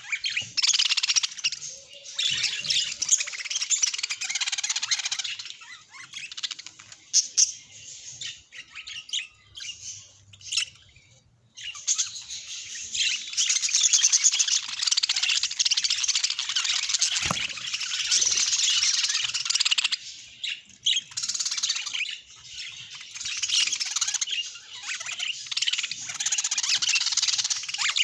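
Budgerigars chattering and warbling in long, dense stretches of fast chirps, which break off abruptly for a moment a little before the middle.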